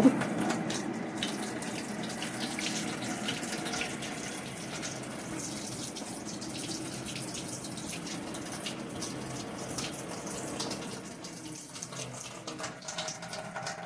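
Water running steadily from a tap, easing off a little near the end, plausibly cooling the temperature sensor being tested.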